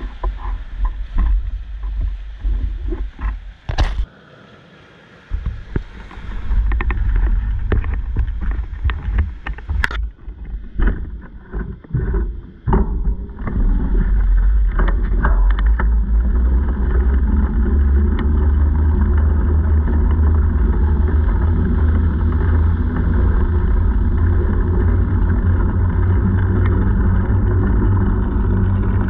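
Irregular knocks, clicks and rattles as gear is strapped and handled on a bicycle. About halfway through, this gives way to a steady low rumble of wind on the microphone and tyres rolling as the bicycle is ridden over wet beach sand.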